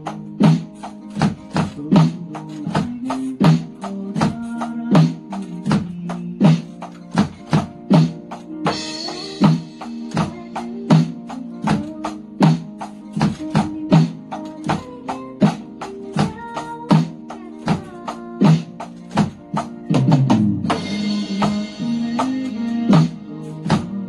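Electronic drum kit played in a steady beat along with a pop song backing track with guitar. Cymbal crashes ring out about nine seconds in and again from about twenty seconds in.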